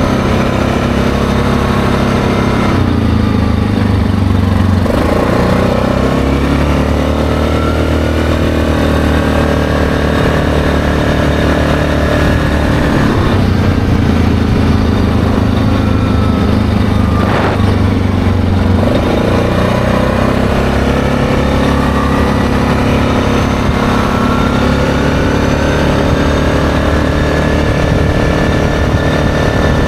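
ATV engine running under way over a gravel road, its pitch falling and climbing again a few times, about three seconds in and again past the middle.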